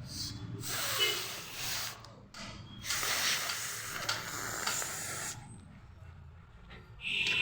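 A person blowing their nose forcefully twice: a blow of about a second, then a longer one of about two and a half seconds.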